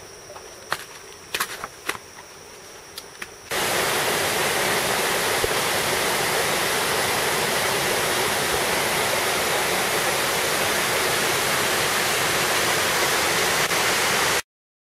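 Steady rush of water in a rocky jungle stream, starting abruptly about three and a half seconds in and cutting off suddenly just before the end. Before it there is a thin, high, steady insect whine and a few sharp clicks.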